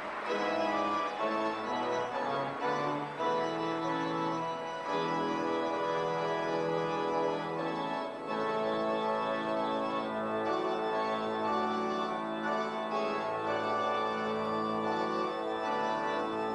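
Organ playing full, held chords that change every second or two.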